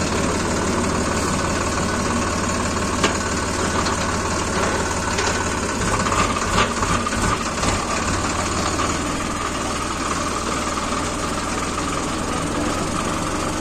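Sonalika Sikander tractor's diesel engine running steadily at low speed, heard close from the driver's seat. A few sharp knocks and rattles come through, one about three seconds in and several in the middle.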